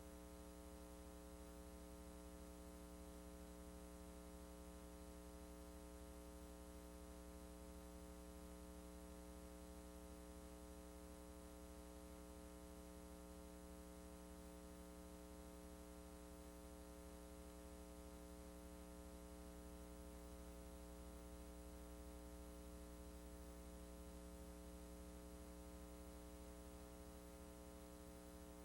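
Near silence: a faint, steady electrical mains hum with light hiss, the empty audio track of a VHS transfer with no recorded sound.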